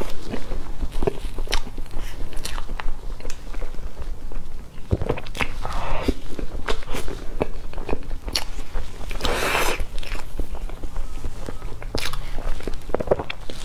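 Close-miked eating sounds: chewing and swallowing soft cream cake taken off a metal spoon, with many short wet clicks and smacks of the mouth. A longer breathy, noisy sound comes about nine seconds in.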